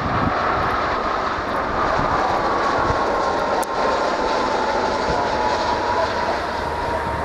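Jet engines of an Airbus A330-300 running close by on the runway: a steady rushing roar with a whine that slowly falls in pitch.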